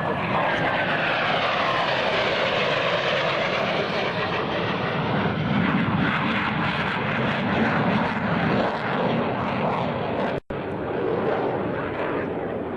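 Jet noise of a Blue Angels F/A-18 Hornet's two GE F404 turbofans as it flies past. A high whine falls in pitch over the first few seconds, then a steady loud rumble follows as the jet climbs away. The sound drops out for an instant about ten seconds in.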